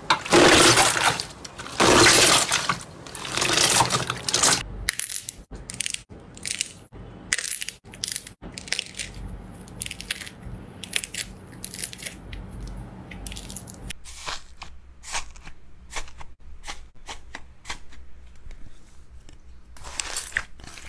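Slime being pressed and kneaded by hand. Clear, bubble-filled slime pressed flat gives loud, dense crackling pops in the first few seconds, then thicker slime being stretched and squeezed gives a run of small sharp clicks and pops.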